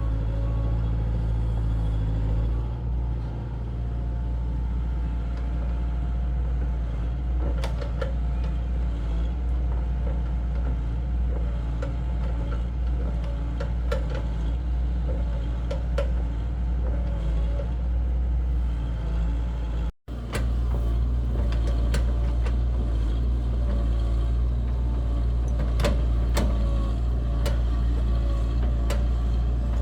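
Heavy construction machine's diesel engine running steadily with a deep rumble, with scattered sharp clicks and knocks over it. The sound drops out for an instant about two-thirds of the way through.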